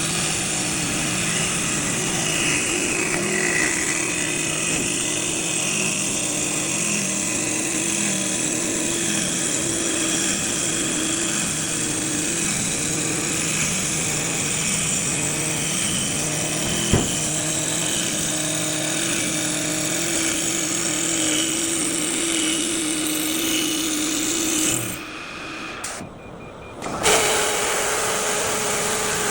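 Automatic-feed CNC woodworking lathe machining wood: a steady din of motors and cutting tools working the wood, with one sharp click partway through. Near the end the noise briefly drops away and comes back as a steadier hum.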